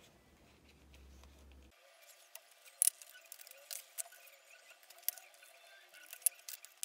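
Faint handling of vinyl decal sheets, then about two seconds in the work goes to fast-forward: a quick, thin scatter of sharp clicks, taps and crinkles from the sped-up cutting and peeling of the stickers.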